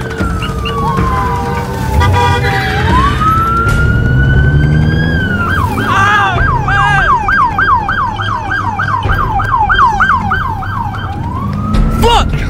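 Police car siren, first wailing in slow falling and rising sweeps, then switching about halfway through to a fast yelp of about three to four sweeps a second, and rising into a wail again near the end, over a low rumble.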